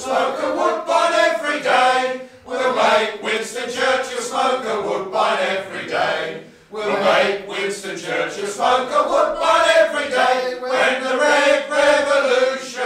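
Singing in a slow, chant-like style: phrases of held notes, with short breaks about two and a half and six and a half seconds in.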